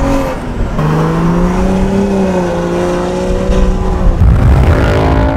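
BMW F30 335i's turbocharged inline-six pulling hard under acceleration, heard from inside the cabin. The engine note shifts about a second in, then climbs steadily, and gets louder and rougher near the end.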